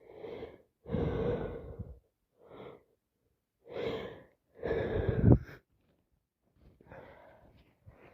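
A woman with a head cold and sinusitis breathing heavily in a string of gasps and sighs, five in all, the loudest about five seconds in and cut off sharply.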